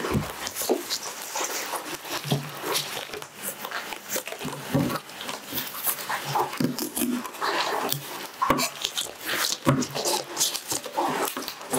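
A chef's knife clicks and taps irregularly on a plastic cutting board as spring onion roots are trimmed. Short whining, voice-like sounds come and go throughout.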